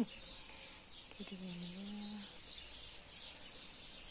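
Small birds chirping in the background, a steady run of short, high, falling chirps. Just after a second in comes one short, low call lasting about a second.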